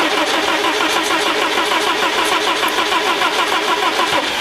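Starter motor cranking the BMW E36 318is's 1.9-litre 16-valve four-cylinder engine in a steady, even rhythm without the engine catching. The owner takes this as a sign that the fuel pump isn't running.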